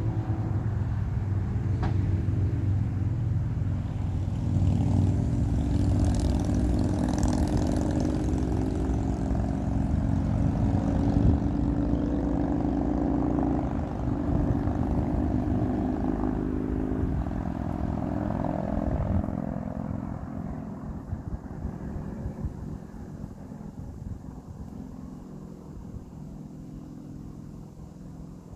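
A motor engine running with a steady low hum, fading gradually over the last third.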